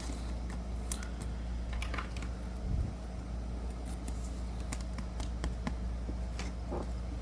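Light scattered clicks and taps from handling a trading card and slipping it into a plastic card sleeve, over a steady low hum.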